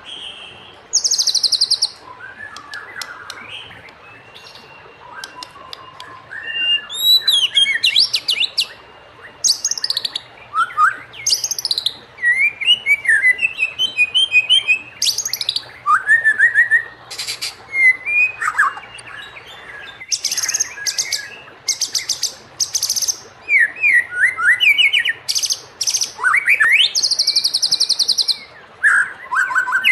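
White-rumped shama singing a long, varied song: loud whistled phrases that rise and fall, broken by rapid, high buzzy trills and rattles, with only short pauses between phrases.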